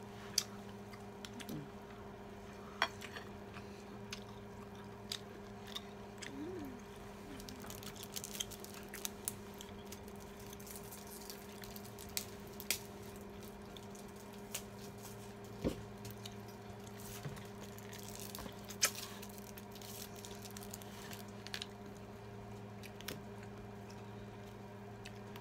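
Mealtime eating sounds: chewing, and scattered clicks of forks and spoons on plates and of dishes being handled, over a steady low hum.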